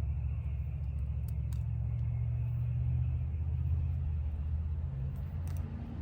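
A low, steady rumble that swells toward the middle and eases off near the end, with a few faint clicks.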